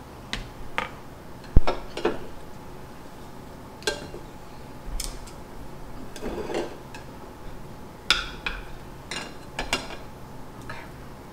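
Chopsticks and utensils clicking and clinking against dishes and bowls at a meal table, in irregular scattered taps, the loudest about a second and a half in.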